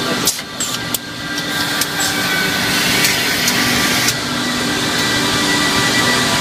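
Mızrak Makine ROYAL 8 machine running with a steady mechanical hum of several held tones. A few sharp clicks or knocks come in the first two seconds.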